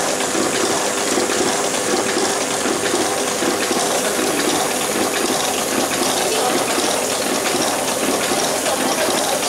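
Pen refill assembling machine running: a steady, dense mechanical clatter with a rushing hiss, unchanging throughout.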